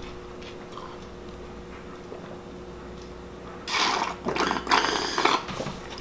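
Milk being slurped straight from a cereal bowl: a run of loud, irregular slurps beginning a little past halfway, after a quiet stretch.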